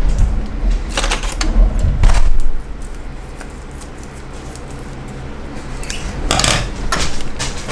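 Kitchen clatter of a frying pan and utensils being handled: heavy bumps and a few sharp clicks in the first couple of seconds, then a quieter stretch and a short rustle or scrape near the end.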